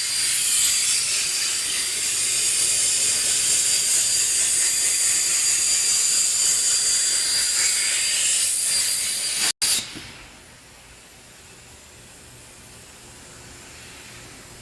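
Hypertherm HPR130 plasma arc cutting plate: a loud, steady hiss with a thin high whistle in it. About nine and a half seconds in the arc cuts off abruptly, leaving a much fainter hiss.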